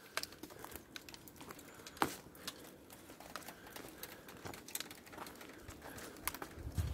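Footsteps through dry undergrowth: twigs and dead leaves crackling and snapping at irregular intervals, with one sharper snap about two seconds in. A low rumble begins near the end.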